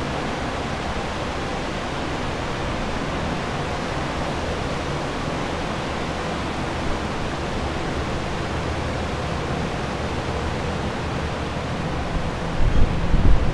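Steady rushing hiss of water-damage drying equipment: air movers and dehumidifiers running. About a second before the end, a few low rumbling bumps break in.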